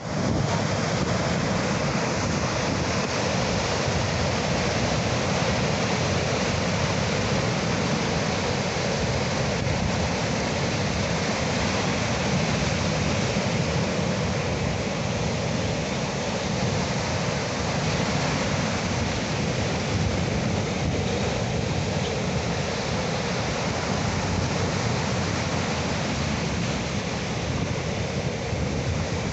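Sea surf washing on the shore as an even, unbroken rush of noise, with no single wave breaks standing out.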